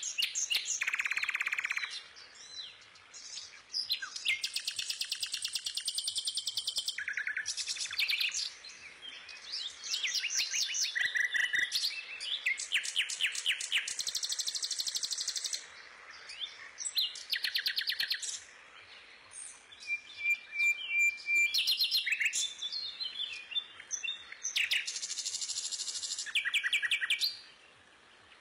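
A small bird singing: repeated bursts of rapid high chirps and trills, separated by short pauses.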